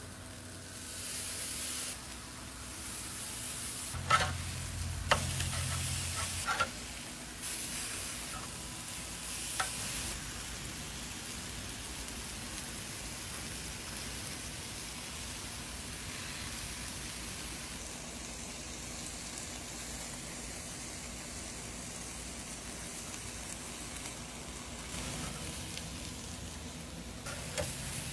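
Lemon-herb chicken breasts sizzling steadily on a hot grill grate, with a few sharp clicks between about four and ten seconds in.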